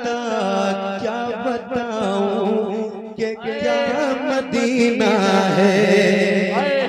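A man singing an Urdu naat in long, wavering, melismatic held notes over a steady sustained drone, with a quick upward glide of the voice near the end.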